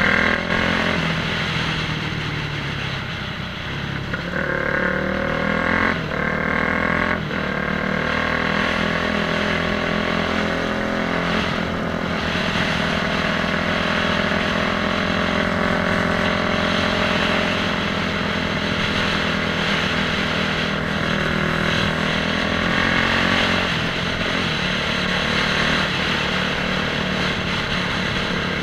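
Motorcycle engine running continuously, its pitch rising and falling as the throttle is worked.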